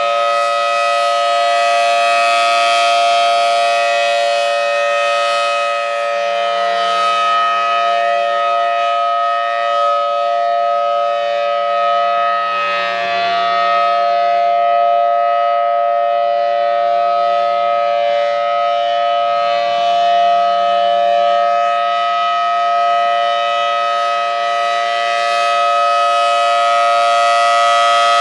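Federal Signal Thunderbolt 1000T tornado warning siren sounding its steady alert signal: a loud, held tone at an unchanging pitch whose loudness swells and eases gently.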